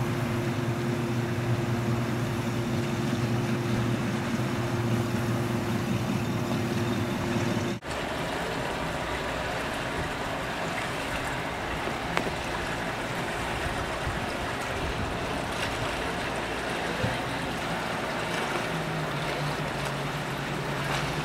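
Small outboard motor on an inflatable dinghy running steadily, a low even hum over the hiss of water and wind. About eight seconds in the sound drops out for an instant, and afterwards the motor hum is fainter under more water noise.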